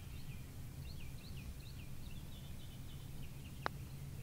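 Small birds chirping over a steady low outdoor hum, with a single sharp click of a putter striking a golf ball about three and a half seconds in.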